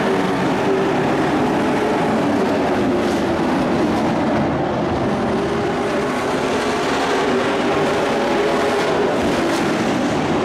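Dirt-track race truck engine running at speed around the oval: a loud, steady drone that holds its pitch with little change.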